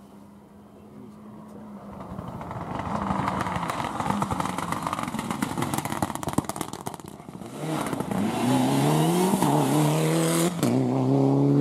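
A Mitsubishi Lancer Evolution rally car approaching at speed, its engine note growing louder with a run of crackles and pops. It then accelerates hard past at full revs, the pitch climbing, dropping at one upshift just before the end and climbing again.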